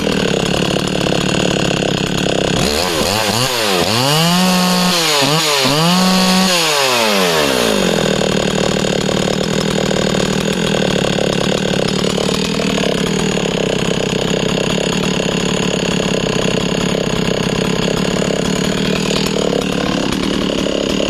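Husqvarna 61 two-stroke chainsaw running. It is first revved up and down about three times, then held at full throttle while cutting a disc off a log, the engine note dipping briefly under load twice.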